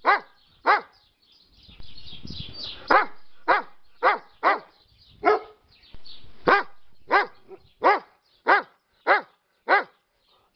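Dobermann barking: about a dozen sharp single barks, nearly two a second, with a pause of about two seconds near the start.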